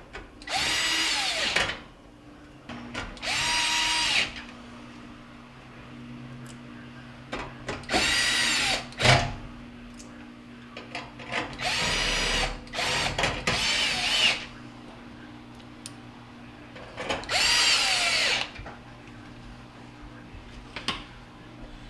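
Power drill driving screws into a stove's sheet-metal cover panel, in about six short runs, each rising in pitch as the motor spins up and stopping after a second or so.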